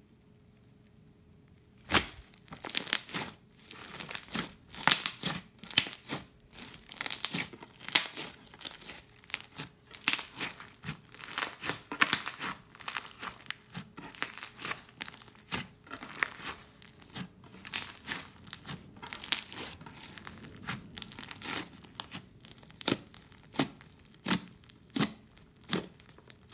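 Crunchy slime packed with foam beads and seed beads being squeezed and poked by hand. A run of irregular crackles and crunches starts about two seconds in.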